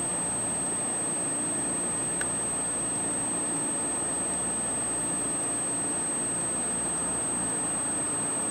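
Steady high-pitched electronic whine from a night-vision device's image-intensifier power supply, held at one pitch over a constant hiss, with a faint click about two seconds in.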